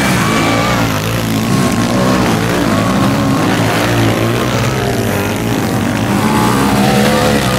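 Several sidecar motocross outfits' engines racing at once on a dirt track, their pitch rising and falling with the throttle as the outfits go by.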